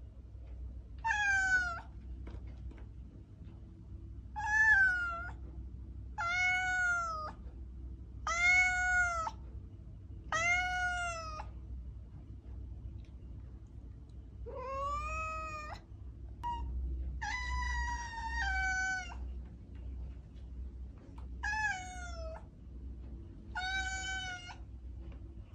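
A cat meowing over and over, about ten high-pitched meows roughly every two seconds. Most meows rise and then fall in pitch, and one longer, wavering meow comes about two-thirds of the way through.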